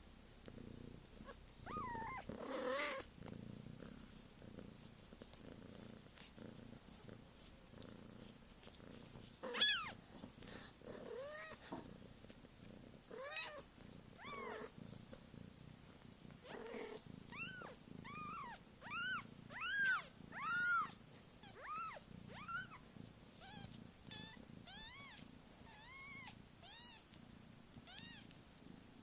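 A cat purring steadily, a low continuous hum, while six-day-old kittens give short high-pitched mews that rise and fall. The mews come one at a time in the first half, then in a quick run of about one or two a second through the second half.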